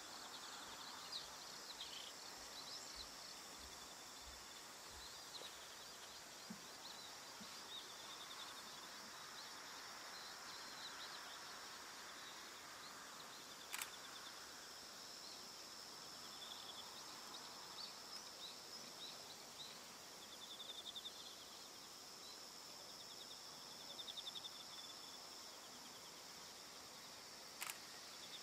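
Faint field insects: crickets trilling in pulsing bursts over a steady high-pitched ring. Two sharp clicks, one about midway and one near the end.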